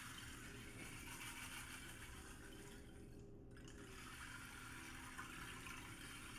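Faint, water-like rushing hiss from a sound-bath instrument, which drops out briefly about three seconds in and then resumes, with faint steady low tones underneath.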